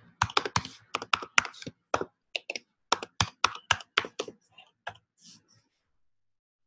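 Typing on a computer keyboard: a quick, uneven run of keystrokes entering a password, stopping a little over a second before the end.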